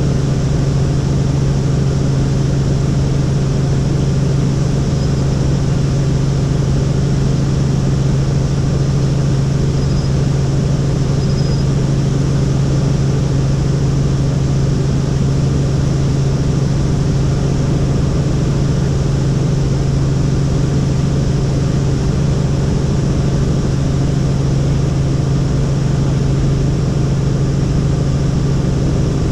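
Helicopter running steadily: a continuous, loud drone of turbine and rotor with a strong low hum.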